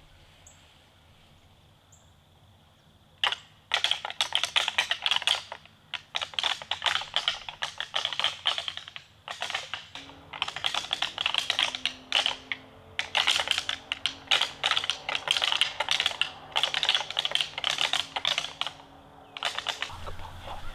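Deer rattling: antlers knocked and ground together in hard, fast clicking and clacking sequences to imitate two whitetail bucks fighting, starting about three seconds in and broken by short pauses before stopping near the end.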